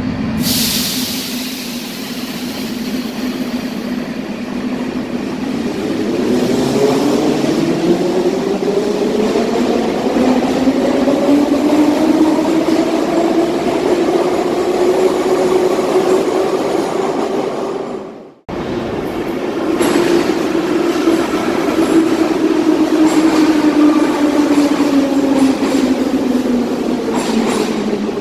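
81-717/714-type metro train pulling away from an underground platform. Its traction motor whine holds steady, then rises in pitch for about ten seconds as it gathers speed. After an abrupt break two-thirds of the way in, another train's motor whine slowly falls in pitch as it slows along the platform.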